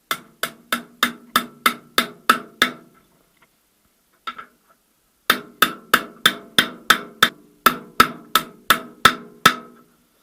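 Hammer blows driving the front bearing of a VAZ 2108–2115 gearbox output shaft into its seat, about three sharp, ringing metallic taps a second. The taps come in two runs with a pause of a couple of seconds between them.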